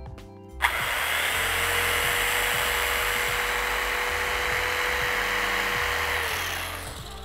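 Corded electric knife running, its serrated blades cutting through a foam case insert. It switches on suddenly just under a second in, runs at a steady whine over a rasping hiss, and winds down near the end.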